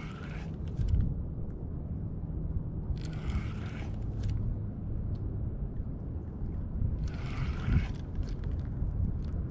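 A spinning reel is cranked in three short spells about four seconds apart as the lure is worked. Under it runs a steady low rumble of light wind and water.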